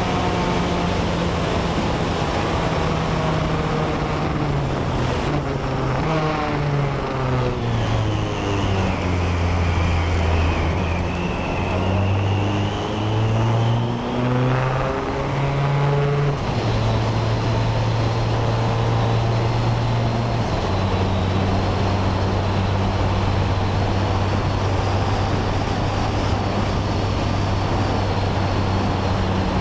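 BAC Mono's four-cylinder engine running on track, heard onboard with wind noise. Its note falls away in steps, then climbs again in steps as it is driven through the gears, before settling to a steady pitch for the last dozen seconds.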